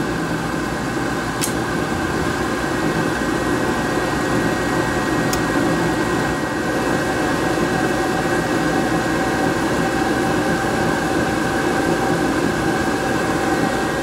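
Induced-draft combustion blower of a Snyder General GUA gas furnace running steadily with a mechanical hum, during an ignition trial with the hot surface igniter on.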